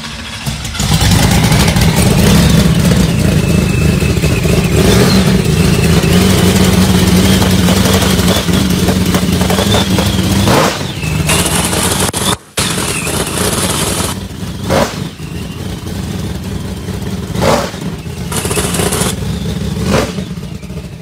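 Drag car's race engine running loud and steady, then dropping to a lower, rougher idle about ten seconds in, with a few sharp blips of the throttle near the end. The engine is running on a newly replaced double-roller timing chain after the old one broke.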